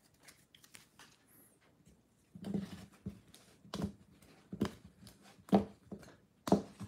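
Hard plastic trading-card holders being handled and lifted off clear acrylic stands: a handful of short, sharp clicks and taps after a quiet start, about six in all, the loudest near the end.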